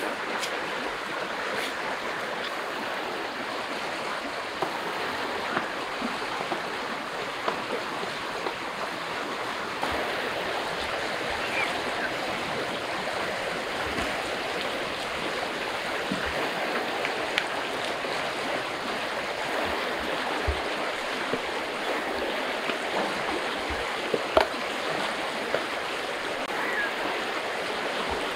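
River water rushing over rocky rapids, a steady sound of running water, with a few short knocks from gear being set down on a mat.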